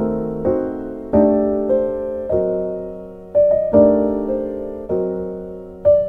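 Background music: a slow electric piano piece, chords struck about every half second to a second and left to ring and fade.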